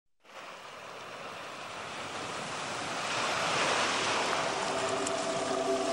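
A rushing noise that fades in and swells gradually, with a few steady held tones joining about four and a half seconds in.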